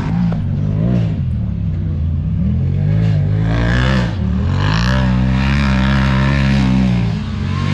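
Yamaha YXZ1000R side-by-side's three-cylinder engine revving under hard driving, its pitch rising and falling. The engine drops off briefly about four seconds in, then climbs again.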